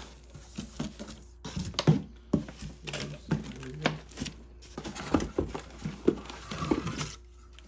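Vacuum cleaner accessories and packaging being handled and unpacked: an irregular run of knocks, clicks and rustling from plastic parts being picked up and set down.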